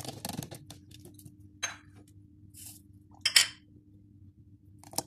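Kitchen containers and utensils being handled, clinking and knocking: a quick run of small clinks at the start, a single knock about a second and a half in, the loudest clatter about three and a half seconds in, and another knock near the end.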